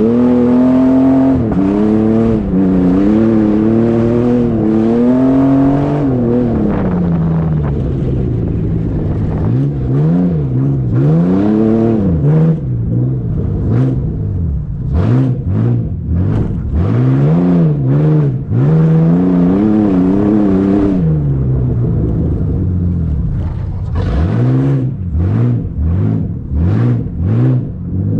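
A vehicle engine revving up and down again and again under hard acceleration. Short sharp clatters come in among the revs from about twelve seconds in.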